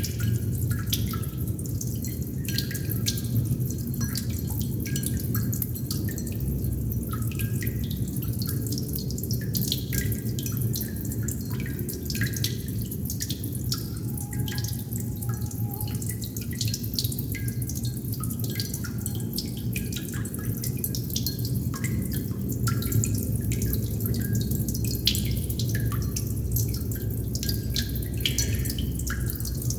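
Water droplets falling in quick, irregular succession, each a sharp little plink, over a steady low hum.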